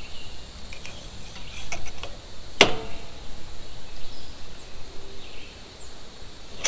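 Handling of metal parts: a few small clicks and a single sharp metallic clank with brief ringing about two and a half seconds in.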